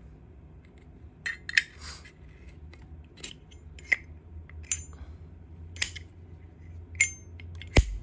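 Zippo lighters being handled: a series of sharp metallic clicks and clinks, about eight of them, some with a short ringing tail, the loudest near the end.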